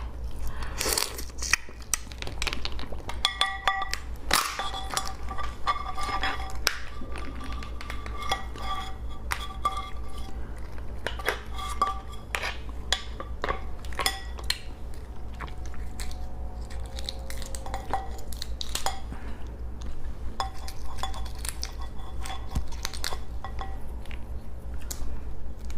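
Clinks and knocks of dishes and utensils, many short sharp clicks at irregular intervals.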